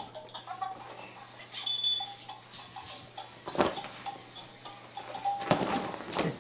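A light-up baby toy playing a simple electronic beeping tune of short stepping notes. Rustling thumps of the fabric playpen break in about three and a half seconds in and again near the end.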